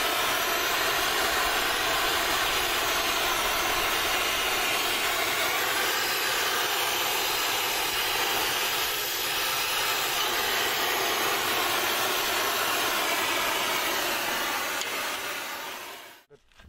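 Oxy-fuel gas torch running with a steady roaring hiss as it heats a wrought iron collar on the gate's scrollwork; it dies away just before the end.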